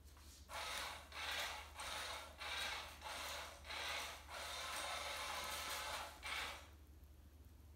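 Motorized concealed-motion cat toy running, its wand sweeping under the nylon cover with a rasping, rustling sound. The rustling comes in pulses a little under twice a second, runs unbroken for about two seconds near the end, and stops about seven seconds in.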